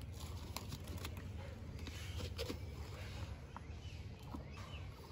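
Faint outdoor background: a low steady rumble with a few soft clicks and rustles of handling.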